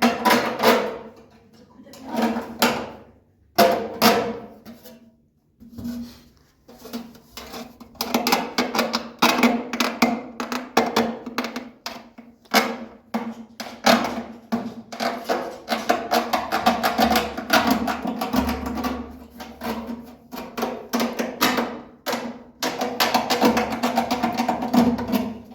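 Music with drums playing a fast, dense rhythm over a held low tone, pausing briefly twice in the first few seconds.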